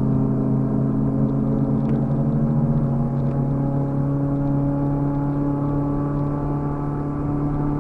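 Car engine running at a steady pitch, heard from inside the cabin, a low drone with only slight rises and falls in pitch.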